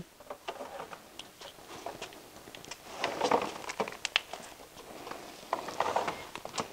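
Alligator clips and cable being handled and clamped onto the terminals of a small 12-volt battery: scattered small clicks and rattles, with denser handling noise about three seconds in and again near the end.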